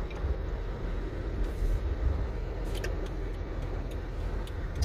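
A car driving, heard from inside the cabin: a steady low rumble of engine and road noise, with a few faint ticks in the second half.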